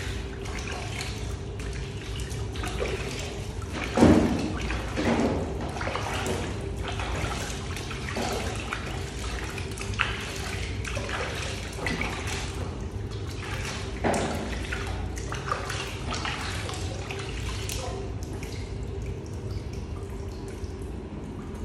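Water splashing and dripping in a plastic basin as a baby monkey is washed by hand, in irregular short splashes with louder ones about four seconds in and again near fourteen seconds. A steady faint hum runs underneath.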